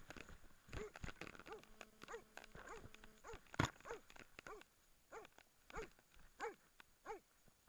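Hunting dog barking in a steady, even rhythm, about one and a half barks a second, the steady bark of a dog baying a moose. There is one louder sharp knock about halfway through.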